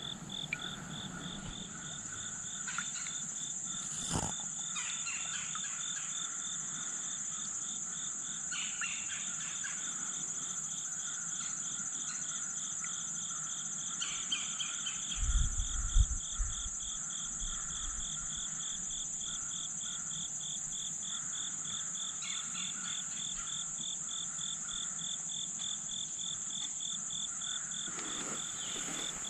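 A chorus of calling insects: a steady high-pitched buzz over a rapid, evenly pulsing chirp that keeps going throughout. A single sharp knock comes about four seconds in, and a few low thuds about halfway through.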